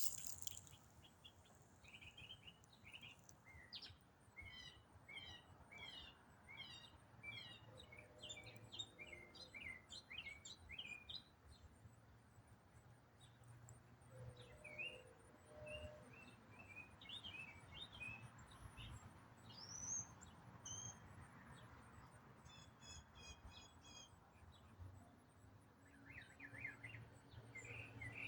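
A songbird singing faintly, a long complex song of quick runs of short, high chirping notes with a few brief pauses.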